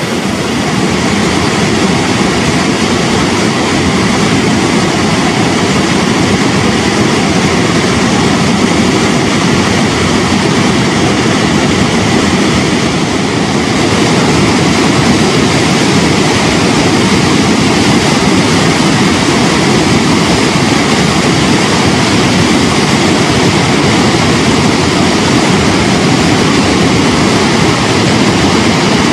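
The Zambezi River pouring over the lip of Victoria Falls: a loud, steady rush of falling water with a deep rumble, growing slightly louder about halfway through.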